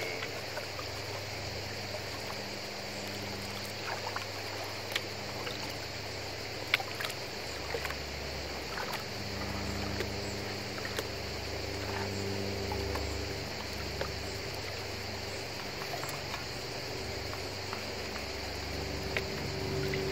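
Shallow river water trickling and swishing around gravel being dug with a small shovel and swirled in a gold pan, with a few sharp clicks of stones. A low engine drone from a passing aircraft builds from about halfway through.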